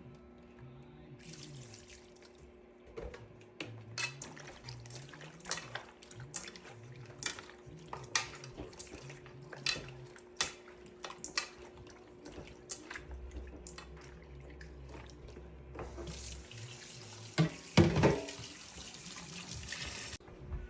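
Tap water running into a sink as raw chicken pieces are washed, with scattered knocks and clatters of the pieces and utensils. The water runs fuller near the end, and the loudest clatter comes about three seconds before the end.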